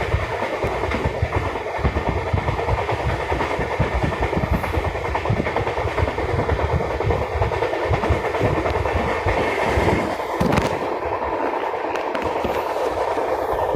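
Train wheels running fast over the rails: a continuous rumble with a rapid clickety-clack of wheels on joints, and one sharper click about ten seconds in.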